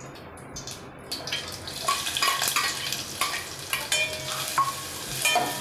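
Sliced onion and green chilli sizzling in hot oil in a stainless steel pot, the sizzle growing louder about a second in, while a metal spoon stirs and scrapes against the pot with many small clicks.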